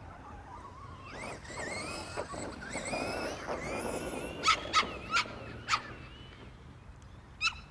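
A dog barking in short, sharp barks, four in quick succession about halfway through and two more near the end, over a wavering, rising whine in the first half.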